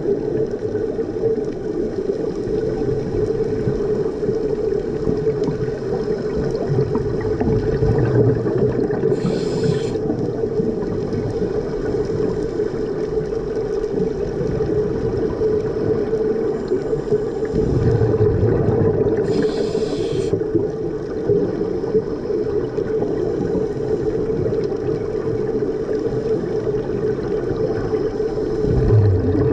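Underwater recording of a scuba diver breathing through a regulator: a hiss and a low rush of bubbles come about every ten seconds, twice in full, over a steady low drone.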